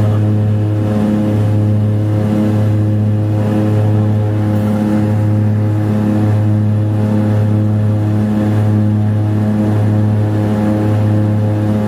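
Engines and propellers of a small twin-turboprop plane climbing after takeoff, heard from inside the cabin: a loud, steady drone with a slow, regular throb.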